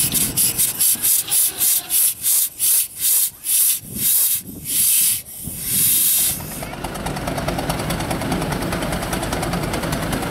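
Steam engine exhaust chuffing in sharp beats, about four a second at first, slowing to one every second or so and stopping about six seconds in. Then a steady mechanical running sound with a fast, even ticking.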